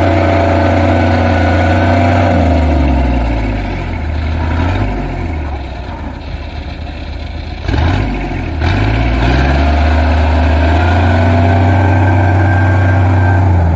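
Engine of a small tracked rice-hauling cart running loudly under load in deep mud. A few seconds in it slows, dropping in pitch and level, then revs back up a little past halfway and runs steady again.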